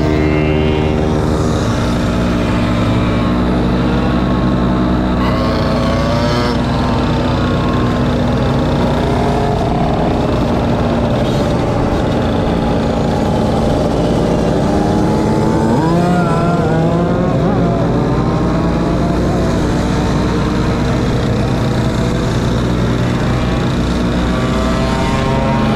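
A pack of mopeds and small motorcycles running at low speed, one small engine close by and loud with many others around it; several times an engine's pitch rises and falls as a bike revs or passes.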